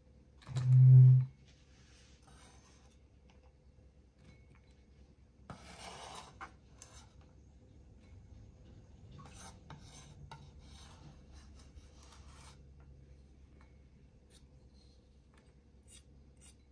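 A single heavy low thump about a second in, then faint scraping and light clicks of a kitchen knife on a cutting board as minced shallots and garlic are worked and gathered up.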